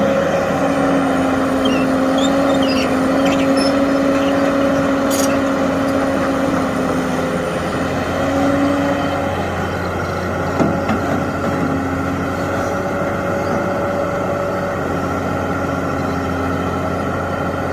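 Hitachi excavator's diesel engine running steadily, with a steady whine over the drone, and a single short knock about ten and a half seconds in.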